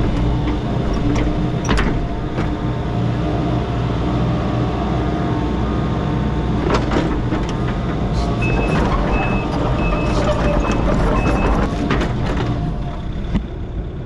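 Heavy-equipment engine running steadily under work, with a few sharp knocks. Partway through, its backup alarm beeps about six times, roughly two a second, as the machine reverses.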